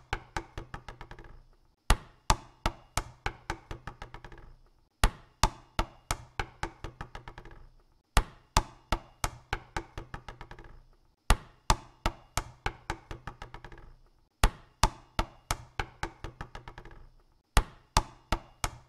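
A basketball dropped onto a hard court and left to bounce to rest, six times over: each time one loud first bounce, then bounces coming quicker and quieter until they die away, about every three seconds.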